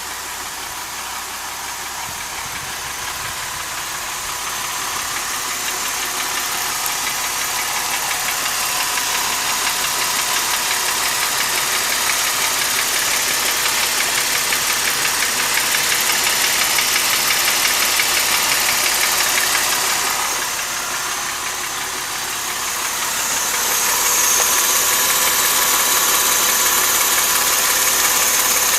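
Mercedes-Benz M272 3.5-litre V6 in a 2005 SLK350 running with a rapid knocking tick, which the owner suspects is a scored cylinder wall. It grows louder over the first several seconds, drops back for a couple of seconds about two-thirds of the way through, then comes up louder again.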